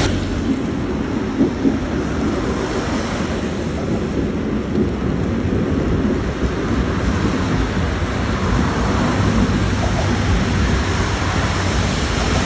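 Steady rushing noise of rain and wind outdoors, with a low rumble of wind buffeting the microphone.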